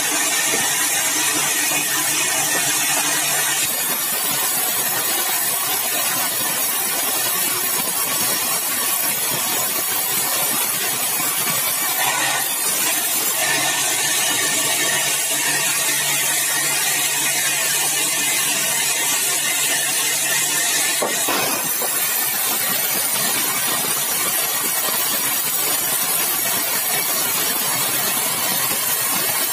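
Sawmill saw running and cutting yellow balau (bengkirai) hardwood, a loud, steady machine noise. The pitch and hiss of the cut shift about four seconds in, again around twelve to thirteen seconds, and about twenty-one seconds in.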